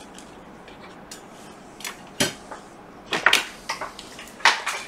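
Light clicks and clatters as parts of a MacBook Pro are handled on a workbench: a single click a little after two seconds in, then a few quick taps from about three seconds in, with another near the end.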